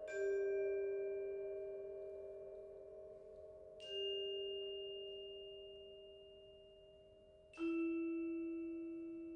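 Mallet percussion playing sparse single notes: three struck tones about four seconds apart, each ringing on and slowly dying away over a faint held note underneath.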